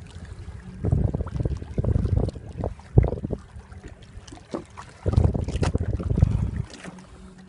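Wind buffeting the microphone on a moving boat in two long gusts, with a single sharp knock about three seconds in, over a faint steady motor hum.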